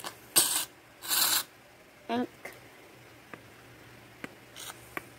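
Aerosol can of shaving foam hissing in short spurts as foam is squirted out: two loud spurts in the first second and a half, then a shorter, fainter one near the end.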